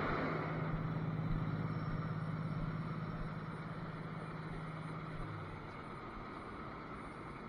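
Cummins ISL inline-six diesel idling steadily during a parked exhaust regeneration. Its low, even hum fades about six seconds in.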